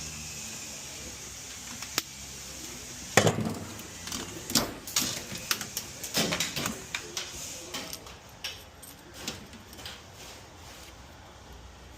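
Hard, handled objects clicking, knocking and rattling at an irregular pace: a single sharp click, then the loudest knock about three seconds in, followed by a string of clatters that thins out after about eight seconds.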